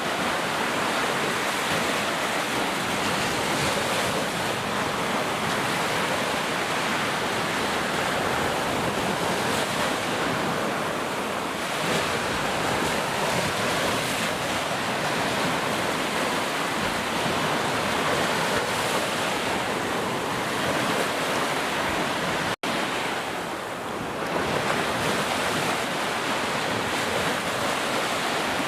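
Heavy rain falling steadily in a dense, even hiss, with a momentary dropout about three quarters of the way through.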